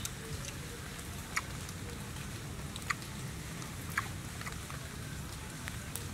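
Scattered sharp crunches and clicks of biting and chewing roasted baby crocodile, the clearest about one and a half, three and four seconds in, over a steady low rumble.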